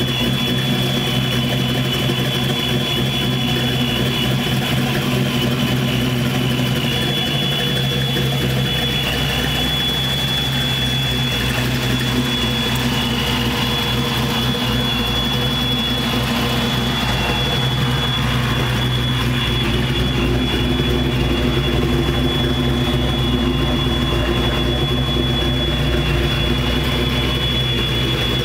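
Supercharged 306 ci V8 of a 1992 Ford Mustang foxbody (Boss 302 block, Vortech V2SQ blower) idling steadily, with a steady high whine riding over the low exhaust note. The low rumble fills out a little after several seconds.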